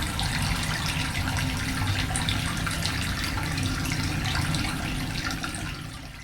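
Running water flowing steadily with small splashes, fading out near the end.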